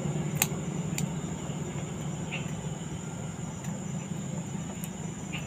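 Steady low background hum with a constant thin high whine. Over it come a few soft clicks and smacks of a man eating with his hands and chewing, two sharp clicks about half a second and a second in.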